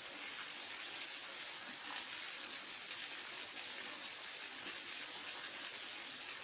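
Waterfall: steady rushing of falling water, an even hiss weighted toward the high end.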